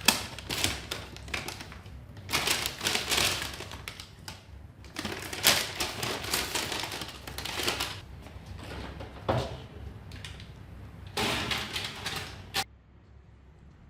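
Kitchen handling noise: a bag-and-bake cooking bag crinkling and clattering against a baking tray in repeated bursts, cutting off abruptly near the end.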